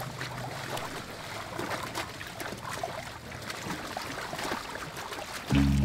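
Wet mud and water sloshing and splashing in irregular bursts as elephants wallow in a mud bath. Loud background music comes in just before the end.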